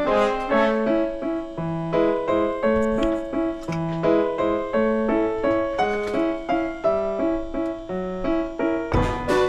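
Background music: a piano-like keyboard playing a bouncy melody of short notes, with a louder full chord near the end.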